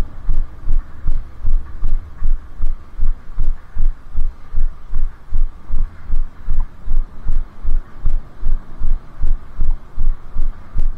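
A jogger's footfalls, with the body-worn camera jolting at each stride: low thuds about three times a second in an even running rhythm.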